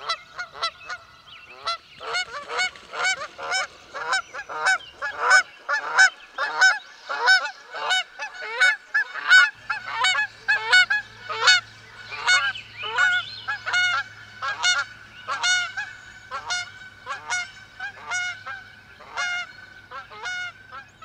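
Geese honking over and over, short calls coming about two to three a second and overlapping like a flock. A faint low steady hum joins about halfway through.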